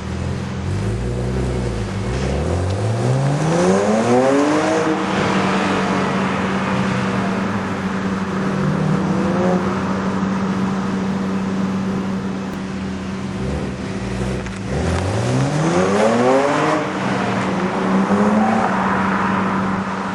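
BMW 135i engine through a Berk Technology aftermarket exhaust, accelerating hard twice: the engine note climbs steeply in pitch about two seconds in, and again about fourteen seconds in, over a steady drone.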